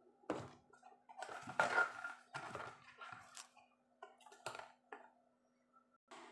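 Tabletop handling noises: a few knocks and a rustle as a plastic canister is moved aside and a cardboard box is picked up, over a faint steady hum.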